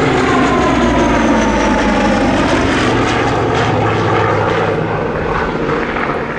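Goodyear FG-1D Corsair's Pratt & Whitney R-2800 radial engine and propeller running loud as the fighter passes by, the pitch falling over the first couple of seconds. The sound eases off a little near the end.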